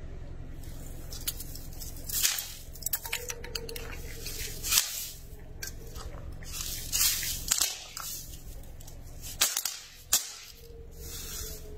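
Small hard plastic pieces and thin clear plastic bowls crackling and snapping as a car crushes them, in irregular clusters of sharp cracks starting about two seconds in. A low steady hum sits underneath and stops a little before the end.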